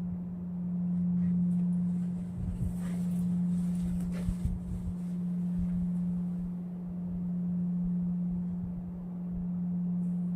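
Singing bowl holding a single steady low tone that slowly swells and fades, with a few faint knocks and rustles around the middle.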